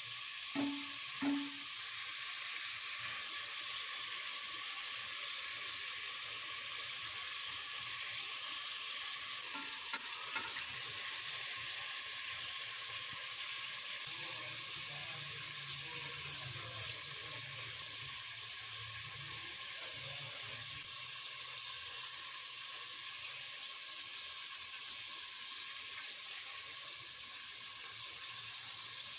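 Mutton pieces frying in oil in a pressure cooker pot, a steady sizzle throughout. Two short knocks, from the spatula against the pot, come about a second in.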